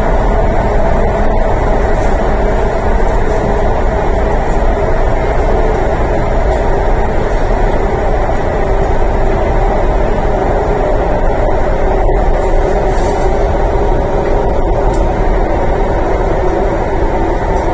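MTR East Rail Line R-Train running at speed, heard from inside the passenger car: a loud, steady rumble of wheels and running gear that stays even throughout.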